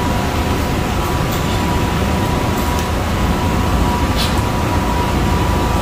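Steady, loud machinery noise: a constant low rumble with a thin steady hum through it and a few faint ticks.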